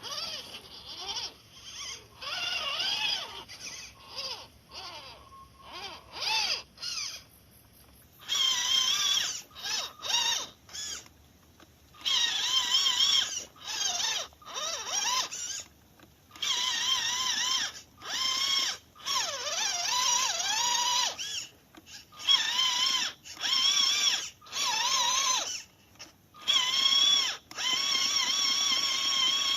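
Electric motor and gearbox of an MN99S RC crawler whining in short throttle bursts, the high pitch wavering as the load changes, with brief pauses between bursts.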